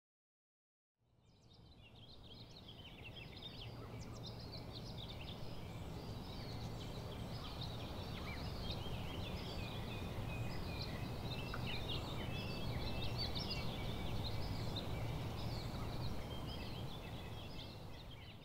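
Many small birds chirping and twittering over a steady low background rumble. It fades in about a second in and fades out at the end.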